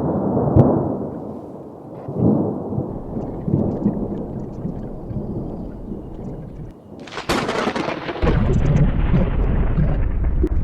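Thunder rolling in several low rumbling waves, then a sudden sharp crack of close thunder about seven seconds in, with a continued heavy rumble after it.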